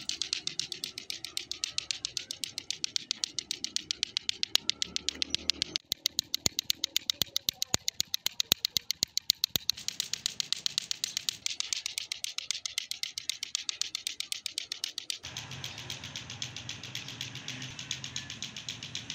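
Lato-lato clacker toy: two plastic balls on a string knocking together in a fast, steady clacking rhythm. The clacks grow louder and sharper about six seconds in for a few seconds.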